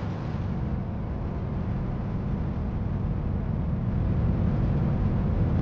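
Spacecraft rocket engines firing under thrust, a sound-design effect: a steady, low rushing rumble that grows slightly louder.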